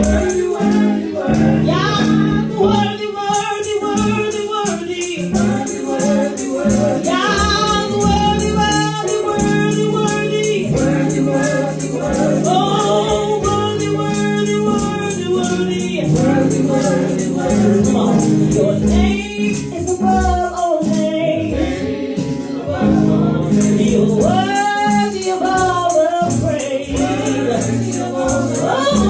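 Gospel-style congregational worship music: voices singing over a band with a steady bass, a tambourine shaking along.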